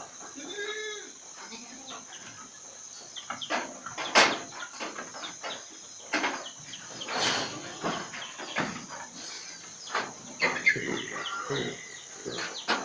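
Goats bleating in short calls, with chickens calling and a couple of sharp knocks about four and seven seconds in.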